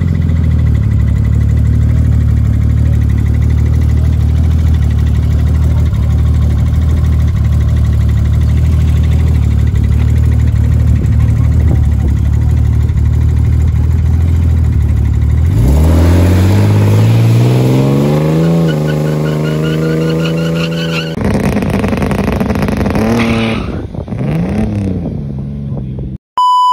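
A turbocharged BMW E36 drag car runs loud and steady on the start line. About fifteen seconds in it launches, and the engine note climbs sharply, dropping back at two gear changes before fading away as the car pulls off down the strip. A short beep near the end.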